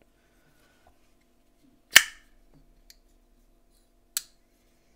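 TwoSun TS377 flipper knife being flipped open with its pivot just loosened: the blade fires out and locks with a sharp snap about two seconds in. A lighter metallic click follows near the end.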